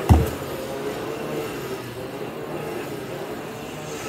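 A single dull thump just after the start, as a bottle or bowl is set down on a tabletop, then a steady low hum underneath.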